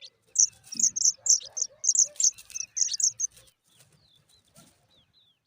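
Pipit nestlings giving begging chirps as they are fed: a quick run of short, high-pitched chirps for about three seconds, then a few faint calls before they fall quiet near the end.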